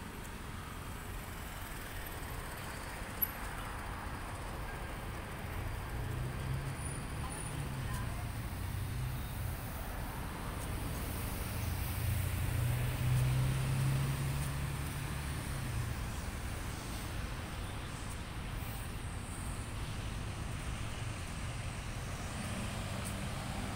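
Road traffic going by, a steady low rumble with one vehicle's engine growing louder and passing about halfway through.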